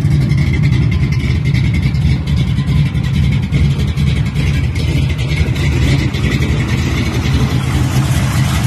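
1977 Monte Carlo's 468 big-block V8 running steadily and loudly, a deep, fast-pulsing exhaust note.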